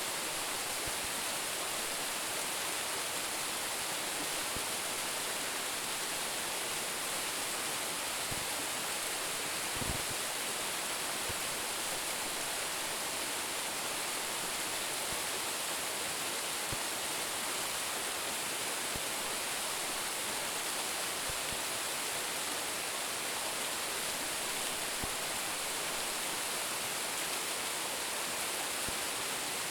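Steady rush of a small mountain waterfall, about a 10 m drop, pouring without let-up. A faint low knock about ten seconds in.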